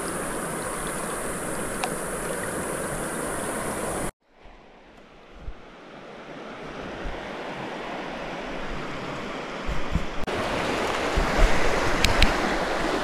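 Steady rushing of river current. It cuts out suddenly about four seconds in, then comes back softer and builds up again, with a few short knocks and clicks near the end.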